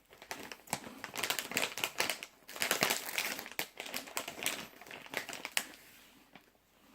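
Plastic snack packet crinkling and rustling as it is handled, a dense run of crackles that dies away about six seconds in.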